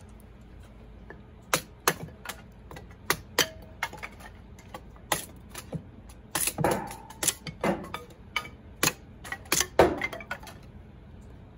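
Hatchet splitting kindling on a wooden chopping block: a string of sharp, irregular chops and knocks, about two a second, the loudest near the end.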